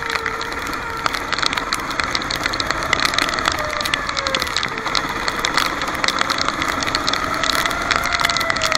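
Racing kart engine running at moderate, fairly steady revs that sag a little and then rise again near the end, with frequent rattling clicks throughout.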